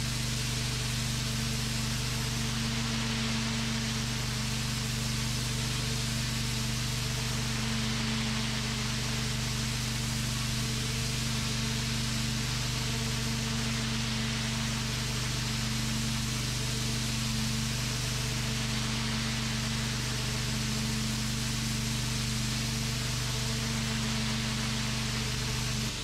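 Pressure washer running steadily: a low, even machine hum under the hiss of the high-pressure water jet blasting grime off a concrete patio.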